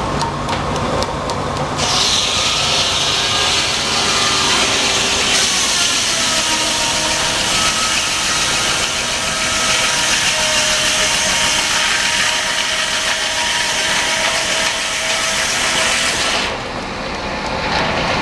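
Sawmill's circular saw cutting through a log: a loud hiss of the cut with a whining tone that drifts slowly in pitch, starting about two seconds in and stopping shortly before the end.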